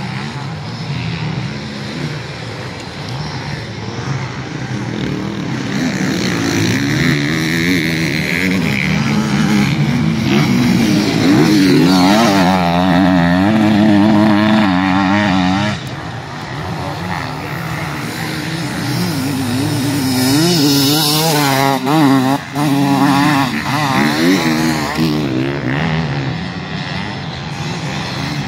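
Enduro racing motorcycles riding a special test, engines revving up and down with quick throttle changes. The sound builds to a loud pass about halfway through, drops off suddenly, then rises again with another burst of revving before fading.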